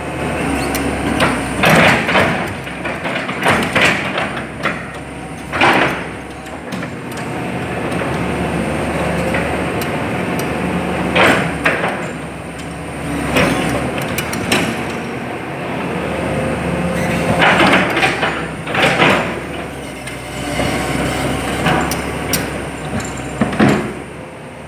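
Hitachi EX200-5 hydraulic excavator running steadily, with about a dozen sharp metallic clanks and knocks at irregular intervals.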